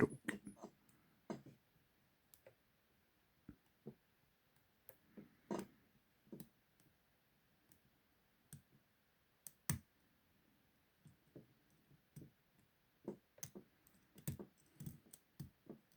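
Lock pick and tension wrench working in the keyway of a large padlock, giving faint, irregular metal clicks and ticks as the pins are probed, with two louder clicks near the middle.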